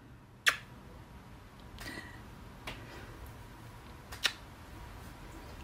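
Kisses smacked onto a cat's head: short, sharp lip smacks, the loudest about half a second in and another just after four seconds, with fainter ones between, over low room noise.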